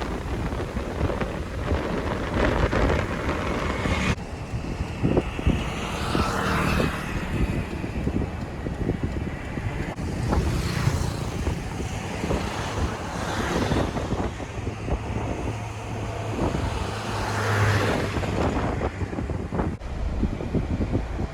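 Construction vehicles' engines running, their pitch rising and falling several times, with wind rumbling on the microphone.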